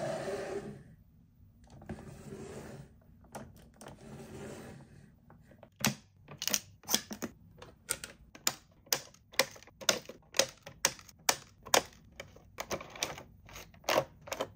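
Three short stretches of rustling noise, then from about six seconds in a long run of sharp clicks, two or three a second, like typewriter keystrokes.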